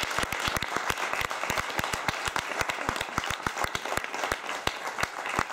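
Audience applauding: many hands clapping steadily at the end of a performance.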